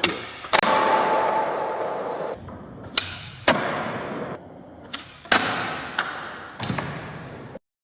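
A series of about five sharp thuds or hits, each followed by a rushing noise that fades away over a second or two; the audio then cuts off abruptly near the end.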